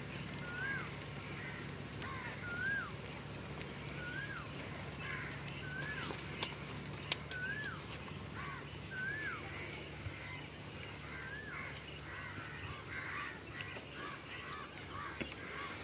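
A bird calling over and over, a short note that rises and falls, about once every one and a half seconds, with busier chirping toward the end. Two sharp clicks stand out near the middle.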